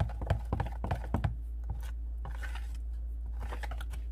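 A quick run of light clicks and taps from hands working dry seasoned batter mix in a plastic mixing bowl. They stop about a second and a half in, giving way to a few soft rustles, over a steady low hum.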